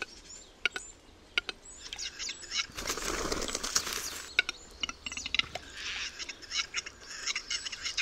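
Western capercaillie cock singing at its lek: a run of dry, separate clicks, then a scraping hiss lasting about a second and a half, about three seconds in (the grinding phase of the song), then clicks again.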